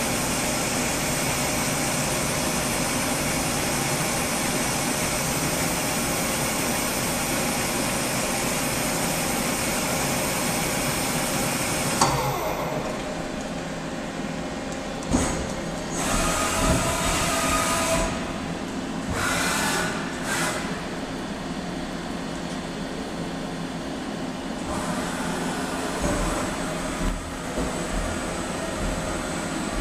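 Doosan Puma 400LB CNC turning center running, a steady machine noise with several whining tones. About twelve seconds in the sound changes suddenly and a falling whine follows, then quieter running broken by a few short bursts of noise.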